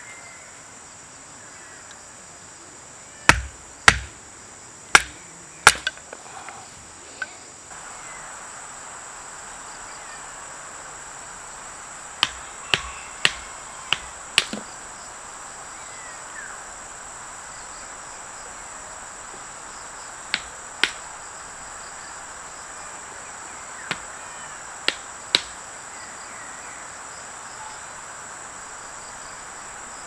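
Wooden baton striking the spine of a knife to split kindling: sharp knocks in short runs of two to five, about half a second apart. Insects keep up a steady high buzz underneath.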